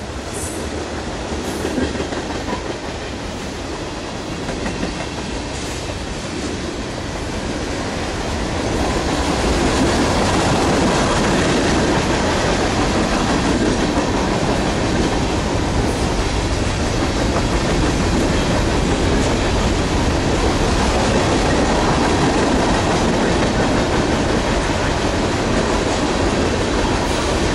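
Freight train cars (tank cars, boxcars and gondolas) rolling past, their steel wheels running on the rails in a steady rumble that grows louder about nine seconds in and then holds.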